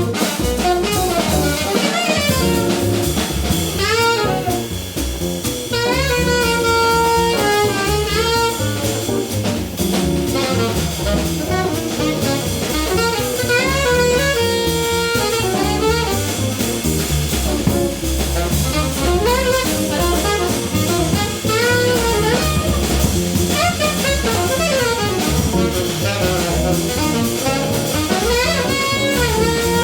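Small jazz combo playing live: a saxophone carries a bending melody line over bass and drum kit.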